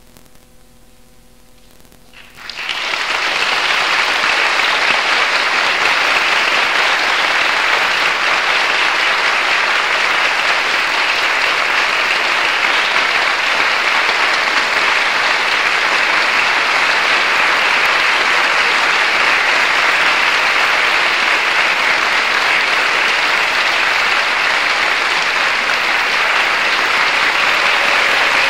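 Audience applauding: a faint hum, then clapping breaks out suddenly about two and a half seconds in and continues steadily as a full, even round of applause.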